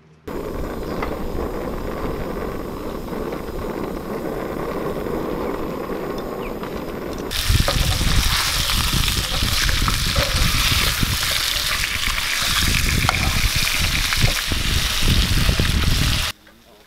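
Fresh-caught fish frying in a pan, a steady sizzle over a low, uneven rumble. About seven seconds in the sizzle turns louder and brighter, and near the end it cuts off abruptly.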